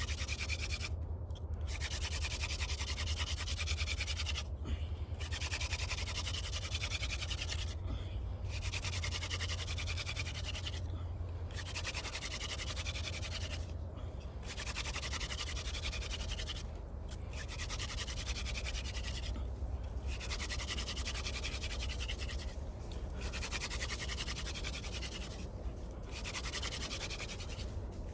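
Hand-drill friction fire: a yucca stem spindle spun between the palms, rasping against a wooden fireboard in bursts of about two and a half seconds. Short breaks about every three seconds mark each time the hands return to the top of the spindle. The drilling is grinding out the hot wood powder meant to form an ember, with a steady low rumble underneath.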